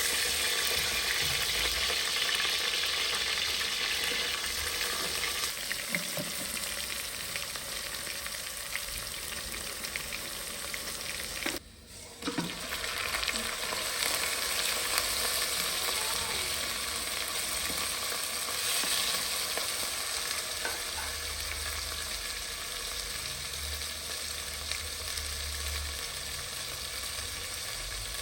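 Food frying in a hot pan, a steady sizzle with stirring. The sizzle drops out briefly about twelve seconds in, then carries on.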